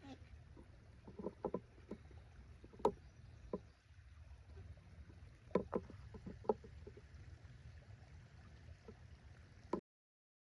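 Scattered wooden knocks and clunks of lumber being handled, a few single ones and a quick cluster, over a low steady rumble; the sound cuts off abruptly near the end.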